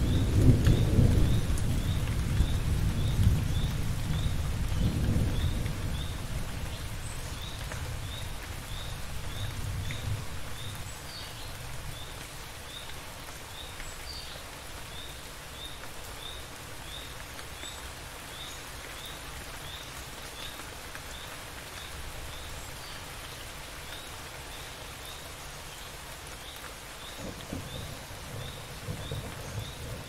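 Steady rain with a loud roll of thunder that fades away over the first six seconds; another rumble of thunder begins near the end. A faint high chirp repeats evenly, about three times every two seconds.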